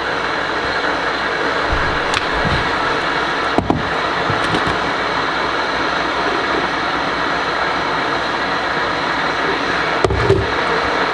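Electric kettle heating water: a steady rushing hiss of water coming up to temperature, with a few light clicks and knocks in the first half.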